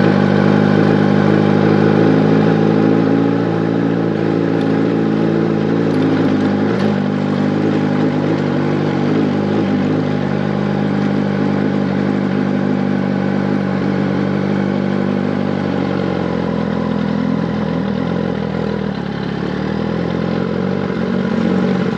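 2024 Kawasaki ZX-10RR's inline-four engine running steadily at a fairly constant engine speed. The pitch drops slightly about two-thirds of the way through.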